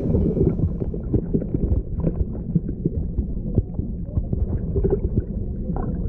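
Churning water in a catfish pond heard through a submerged camera's housing: a muffled low rumble with many small clicks and knocks from bubbles and moving water.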